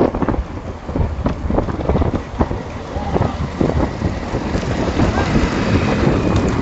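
Heavy wind buffeting the microphone of a vehicle moving alongside racing bullock carts, with scattered short knocks and brief shouts over it.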